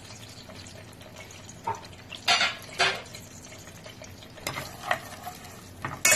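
Whole spices (cardamom, cloves, mace) frying in hot oil and ghee in an aluminium pot with a faint, steady sizzle. A metal spatula knocks against the pot several times, loudest near the end as stirring begins.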